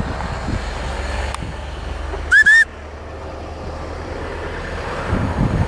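A shepherd's whistle command to a working sheepdog: two quick rising whistle notes, loud, about two and a half seconds in. Steady wind rumble on the microphone runs underneath.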